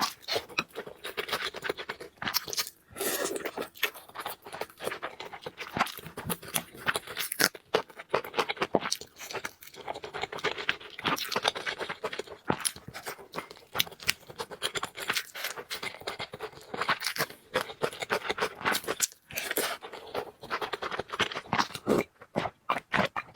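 Close-miked eating: a person chewing and crunching food in the mouth, with a dense run of short wet clicks and crackles.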